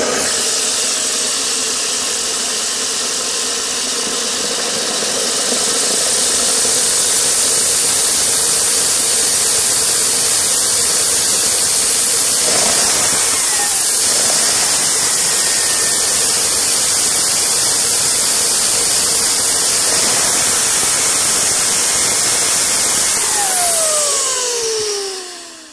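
Turbocharger-based DIY gas turbine running at speed: a loud, steady rushing roar with a high whine, growing louder about five seconds in. Near the end the whine falls in pitch as the turbine spools down and the sound dies away.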